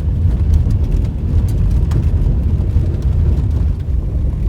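Steady low rumble of a moving vehicle heard from inside, with a few faint clicks.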